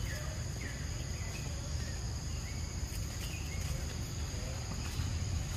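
Insects droning steadily, two even high-pitched tones, over a low rumble, with a few faint short chirps scattered through.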